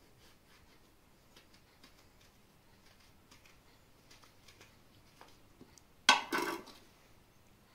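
Kitchen handling sounds during food preparation: faint scattered clicks and rustles, then a loud sharp knock about six seconds in, followed at once by a shorter clatter.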